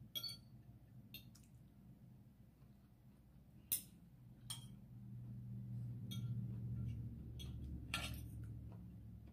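Metal spoon and fork clinking and scraping against a ceramic plate: several sharp clinks spread through, the loudest a little under four seconds in. A low hum swells in the second half.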